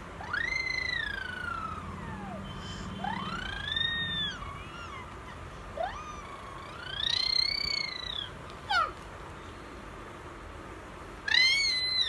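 A small child's high-pitched squealing sounds: about five long drawn-out calls that rise and then fall in pitch, meow- or siren-like, with short pauses between them.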